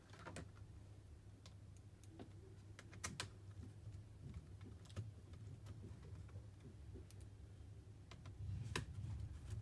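Scattered light clicks and taps of hands and a screwdriver handling the internal parts of an opened HP EliteBook 840 G3 laptop: heatsink, fan and cables. A steady low hum runs underneath, and the clicks come more often near the end.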